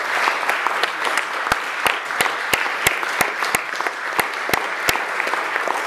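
Audience applauding steadily. One set of claps stands out above the rest, sharp and about three a second, through the middle of the applause.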